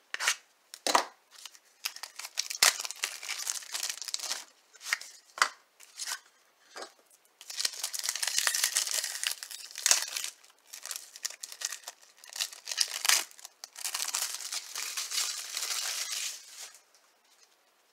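Wrapper of a baseball trading-card pack being torn open and crinkled: sharp snaps and rustles, with two longer stretches of crinkling, one at about eight seconds and one at about fourteen.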